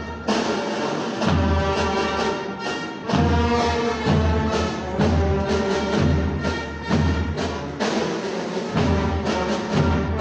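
Brass music with deep drum beats at a slow, steady pace.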